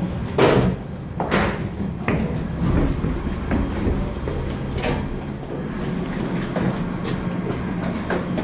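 Several sharp knocks and clanks, a few seconds apart, over a steady low hum.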